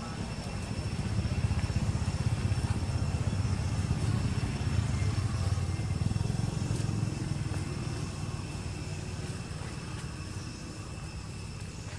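Low rumble of a passing motor vehicle, building over the first couple of seconds, then slowly fading away.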